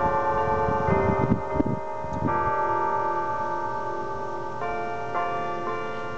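Church bells ringing, several different notes struck one after another, each ringing on and overlapping the next, with a new strike every second or two. A few low thumps come under the first couple of seconds.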